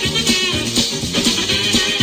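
Upbeat music with a bass line and a steady beat.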